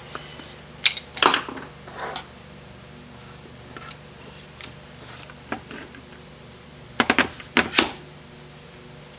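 Small metal parts and hand tools clinking and clattering on a workbench during the teardown of a Chrysler 727 transmission valve body, in a few short clusters, with the loudest quick run of clatters near the end.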